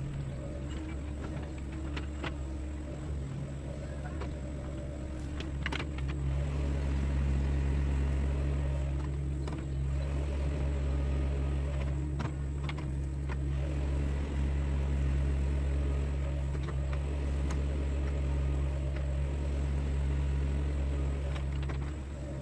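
Sunward mini excavator's diesel engine running steadily, getting louder about six seconds in as it takes on more load, with a few short clanks.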